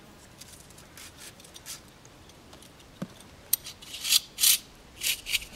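Hands handling a yo-yo fishing reel tied to a dead branch: scattered rustling and scraping, with a single knock about three seconds in and a cluster of louder, sharp scrapes in the last two seconds.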